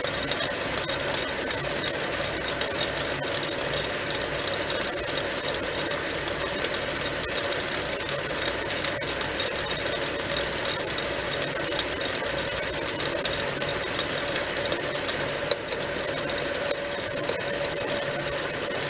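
Metal lathe running steadily, with a steady hum and a few faint ticks, during a single-point thread-cutting pass on a small part.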